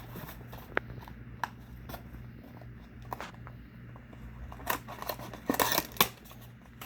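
Trading-card box packaging being handled and opened. A few sharp clicks come first, then a short flurry of crisp cutting and crackling sounds about five seconds in.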